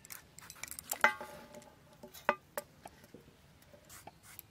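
Ground spice being moved from a stone grinding slab into a steel plate: scattered light taps and scrapes, with the steel plate ringing briefly about a second in and another sharp tap a little after two seconds.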